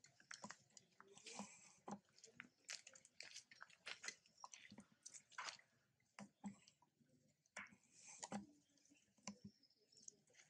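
Faint, irregular crackling and rustling of dry leaf litter as monkeys shift about on it: many short, uneven clicks.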